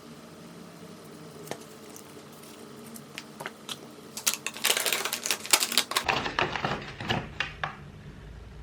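A run of light, rapid clicks and clatters, sparse at first and then dense and fast for a few seconds before thinning out.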